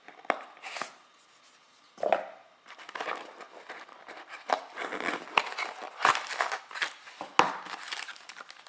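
Packaging being handled and unwrapped: irregular crinkling and crackling with sharp clicks, thickening into a steady run of crackles from about three seconds in.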